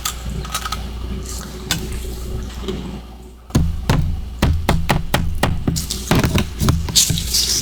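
Close-miked chewing of freezer frost and ice chunks: a run of sharp crisp crunches that eases off for a moment about three seconds in, then resumes as quick repeated bites.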